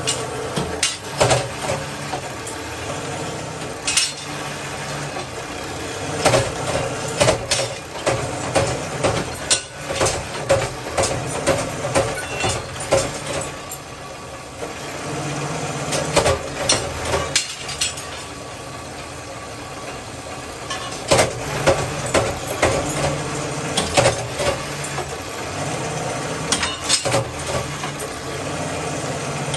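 Motor-driven metal-working machine running with a steady hum while sheet-iron strips are fed through its rollers, with repeated sharp metallic clanks and knocks at irregular intervals.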